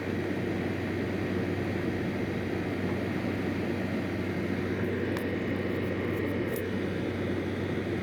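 Steady low rumble with a faint steady hum, and a few soft clicks a little past halfway.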